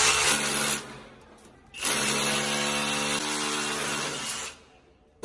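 Power drill boring into a tiled wall to make the anchor holes for an air conditioner's outdoor-unit bracket. It runs in a short burst, stops briefly, then runs again for about two and a half seconds.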